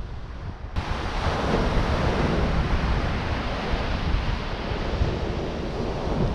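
Ocean surf breaking on the beach, a steady rush, with wind buffeting the microphone in a low rumble; it grows louder and brighter under a second in.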